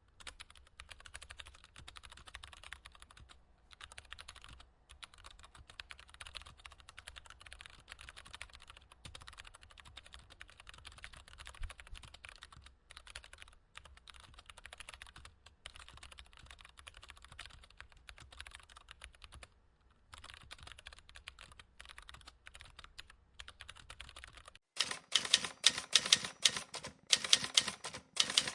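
Typing on a computer keyboard: a fast, steady patter of keystrokes with a few brief pauses. About 24 seconds in it cuts to a much louder, sharper bout of typing.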